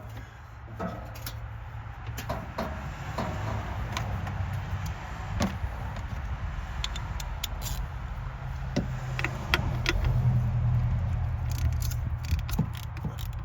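Scattered metallic clicks and taps of hand tools working on a crusty, seized coil-pack bolt on a Chevy V8, over a steady low hum that grows a little louder near the end.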